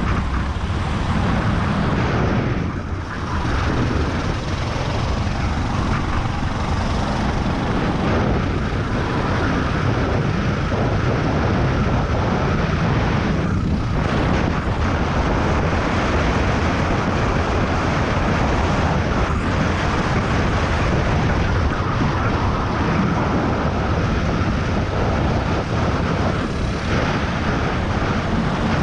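Racing kart engine running hard at speed, heard from a camera mounted on the kart, mixed with heavy wind noise; the sound dips briefly about three seconds in and again about fourteen seconds in.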